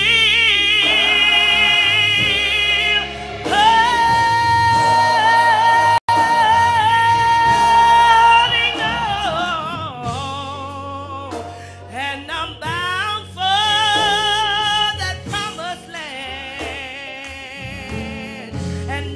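Live gospel singing: a voice sings wordless runs and holds one long high note with vibrato for about four seconds, over steady low accompaniment. The music gets quieter in the second half.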